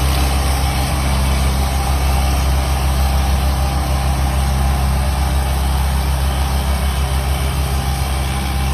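Large vehicle engine idling steadily with a deep, even hum, an engine sound effect dubbed over the toy footage.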